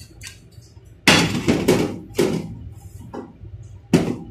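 Loud knocks and clatters of kitchen containers being handled and set down on a worktop: three in quick succession starting about a second in, then another near the end.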